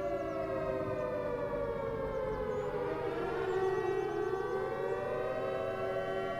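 Civil defense siren wailing: one steady tone against a second tone that slides down in pitch over the first few seconds and climbs back up near the end.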